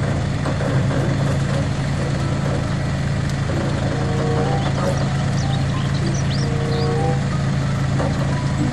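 Heavy machinery running steadily: the diesel engines of an excavator and a concrete mixer truck give a constant low drone with a steady hum.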